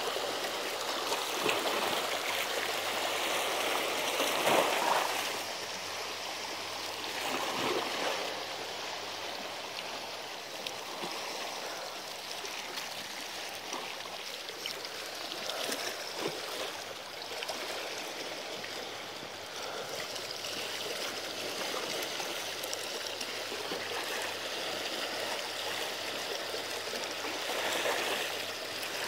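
Seawater washing and lapping against the rocks of a seawall, a continuous rushing that swells louder about four seconds in and again near the end.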